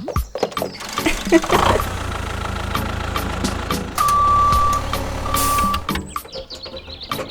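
A vehicle engine running steadily, with two long, even beeps near the middle.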